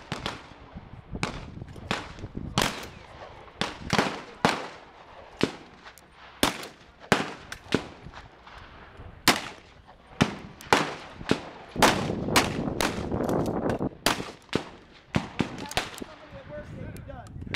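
Repeated gunshots from a .45 Long Colt single-action revolver, mixed with other shots, about two dozen in all at irregular spacing, some coming close together.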